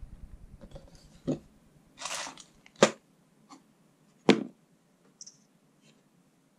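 Small parts being handled and set down on a cardboard box: a brief crinkle of a plastic zip bag and three sharp knocks spread over a few seconds.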